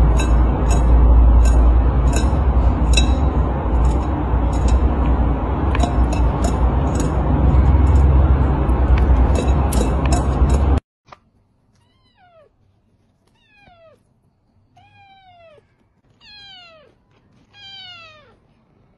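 A kitten eating from a plate: a loud low rumbling noise with quick, regular clicks over it. This cuts off suddenly about eleven seconds in, and a kitten meows about five times, short calls that fall in pitch and grow louder one after another.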